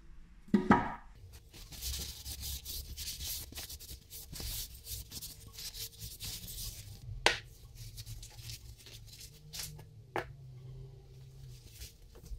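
Paper towel rubbing linseed oil into a wooden hand-plane tote: a dry scrubbing hiss in quick strokes through the first half. There is a short loud thump about half a second in, and two sharp knocks in the second half.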